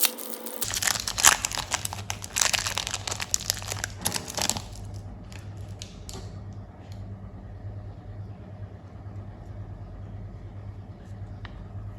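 Candy wrappers crinkling and tearing for about four seconds, then a steady low hum with a few faint clicks.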